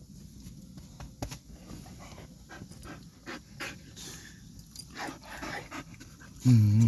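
Big dog panting in quick, irregular breaths, with a short, loud, low vocal sound near the end.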